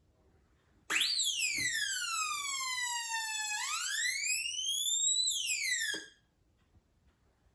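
Electronic police siren circuit wailing: about a second in its pitch leaps up, then glides slowly down, rises again and starts to fall before cutting off suddenly about six seconds in.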